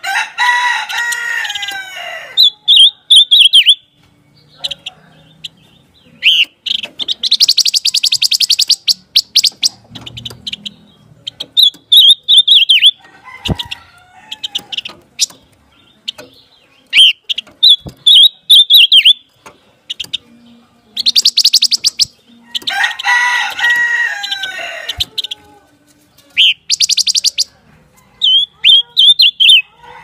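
Silver-eared mesia (pancawarna) calling and singing in repeated bursts: short quick phrases and rapid high trills. Twice, once at the start and again about three-quarters of the way in, there is a longer, lower, harsher call that drops in pitch at its end.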